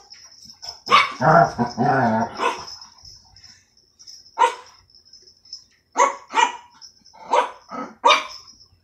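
A dog barking: a run of barks about a second in, then single sharp barks, with several in quick succession near the end.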